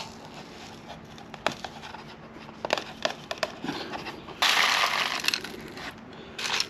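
Ground coffee being emptied from a BLACK+DECKER blade coffee grinder into a small container: plastic clicks and taps as the grinder is handled, with a rushing pour of grounds lasting about a second past the middle.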